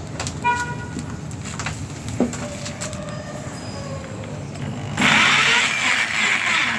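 Light clicks and knocks of tools being handled over a low hum, then about five seconds in a power drill fitted with a small bit runs loudly for about two seconds.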